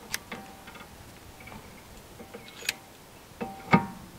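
Scattered metallic clicks and clinks from a caliper piston wind-back tool being turned by hand against a rear brake caliper, some ringing briefly, with one louder clink near the end.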